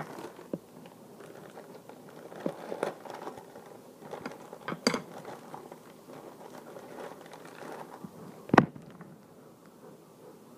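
Plastic bag of mini marshmallows crinkling as it is handled and pulled at, with scattered small clicks and one sharp snap about eight and a half seconds in.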